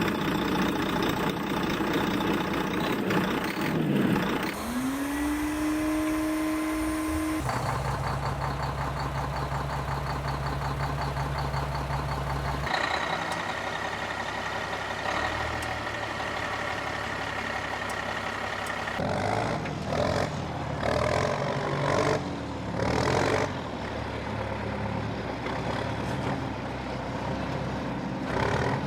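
Synthesized truck noises from a toy truck's electronic sound module. Engine and vehicle sounds rise in pitch, hold steady and switch abruptly from one to the next, with choppy bursts in the last third.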